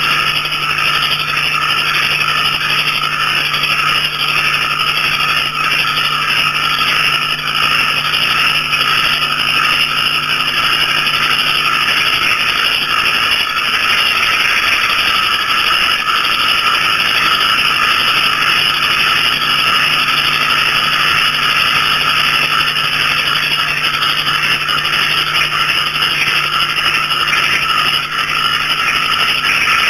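Dense night chorus of small frogs, banded bullfrogs and crickets, a steady unbroken mass of calling and chirping. A low steady drone under it drops out for a few seconds midway and returns.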